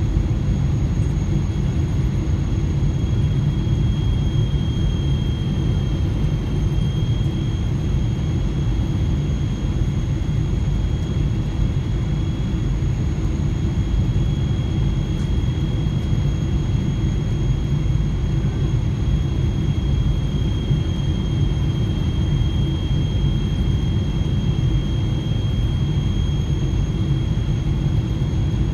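Airliner cabin noise during descent: a steady low rumble of engines and airflow, with a thin, steady high-pitched whine above it.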